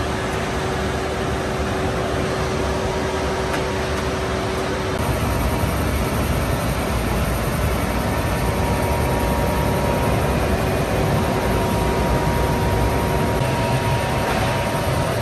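Rebar rolling mill machinery running: a loud, steady mechanical noise with a faint whine, which changes in tone about five seconds in.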